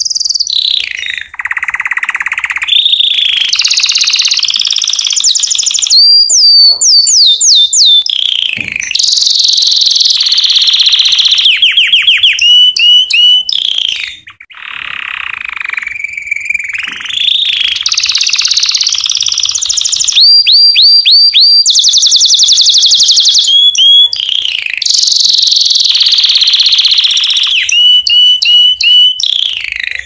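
Canary singing a long, unbroken song of fast trills and rolls. Each phrase is held for a second or two before switching to the next, some as quick runs of repeated notes, with a brief break about fourteen seconds in.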